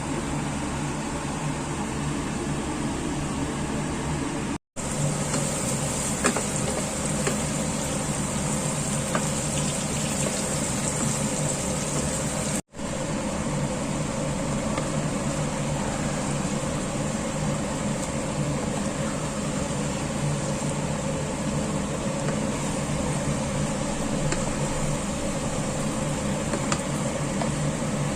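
A steady mechanical hum with a hiss over it, like a running fan or motor, with a few faint ticks. It drops out for an instant twice.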